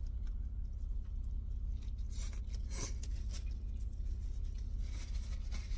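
Aluminum foil wrapper crinkling in a few short crackles about two to three seconds in, over a steady low hum.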